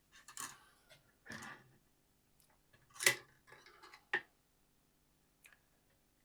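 Handling noises on a workbench: a few short clicks, taps and scrapes from small tools and objects being moved, the loudest about three seconds in and a sharp tap just after four seconds.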